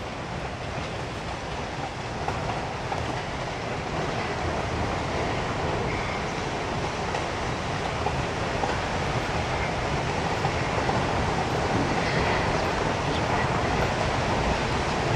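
Meitetsu Mo 750-series single-car electric railcar running on the line, a steady rumble and rattle of the car that grows gradually louder.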